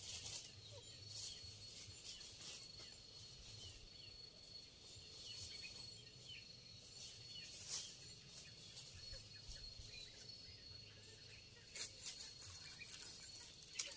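Quiet rural outdoor ambience: a thin, steady, high-pitched insect drone, with occasional faint bird chirps. A few soft rustles or clicks near the end.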